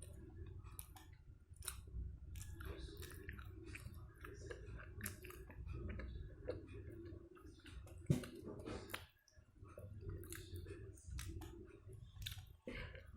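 Close-up chewing and mouth sounds of a person eating soy-sauce chicken, with many small clicks. There is a sharper single click about eight seconds in.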